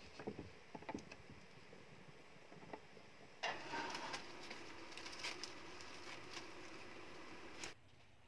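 A kitchen knife chops cucumber on a wooden block, a few sharp knocks in the first second. A few seconds in, a louder steady hiss with crackles starts suddenly at a wood-fired clay stove and cuts off shortly before the end.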